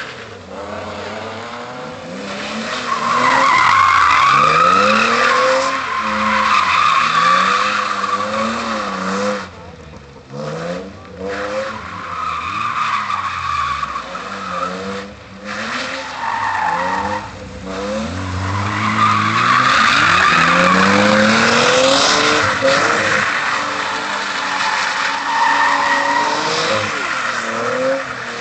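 BMW 328i straight-six revving up and down while the car spins donuts, the rear tyres squealing and skidding as they burn out. The squeal is heaviest a few seconds in and again around twenty seconds in, with short drops in level between.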